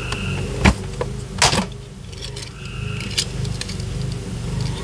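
Small plastic toys clacking and rattling as they are handled and sorted in a cardboard box: a sharp click, then a short rattle about a second and a half in, then a few lighter taps, over a steady low hum.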